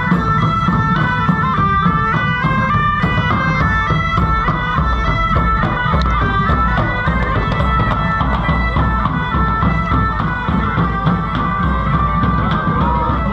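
Bagpipes playing a quick stepping melody over a steady drone, with a drum beating along, from a small band marching past.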